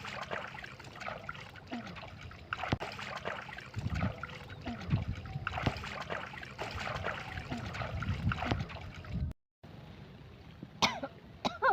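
Stream water running and babbling over stones, a steady gurgling trickle.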